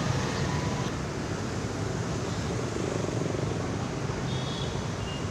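Steady outdoor street traffic noise: a continuous low rumble of passing vehicles.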